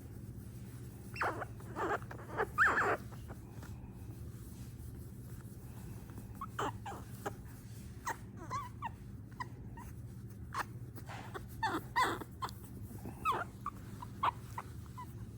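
A baby wild animal squeaking and chattering: short, high squeaks in irregular clusters, loudest about three seconds in and again around twelve seconds, over a low steady hum.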